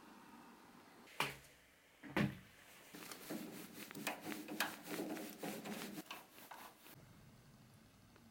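Two sharp knocks about a second apart, then a few seconds of rapid, irregular clattering knocks like wood or a door being handled, which stop abruptly near the end.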